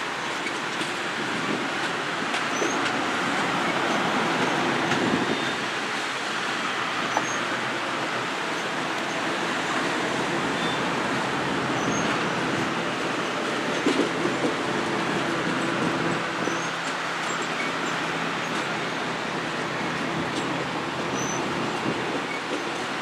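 Train cars rolling steadily past on the rails, a continuous rumble with light wheel clicks and faint squeal.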